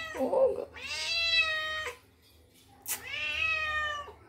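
A cat meowing twice, two long drawn-out meows of about a second each that sag slightly in pitch at the end. A single sharp click comes just before the second meow.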